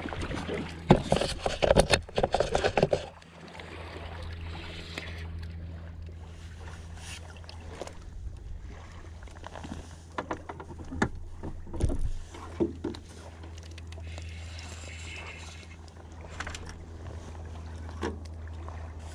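Steady low hum of a small boat's motor, with water slapping against the hull. Several loud bumps come about a second in, and a few sharp knocks around the middle.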